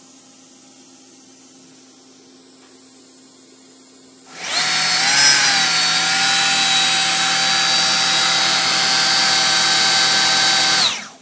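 Computerized alternator test bench spinning a GM CS130 high-output alternator through its output test, with the drive motor and alternator whining together. After a low steady hum, the whine starts about four seconds in, wavers briefly in pitch, then holds steady for about six seconds before cutting off sharply.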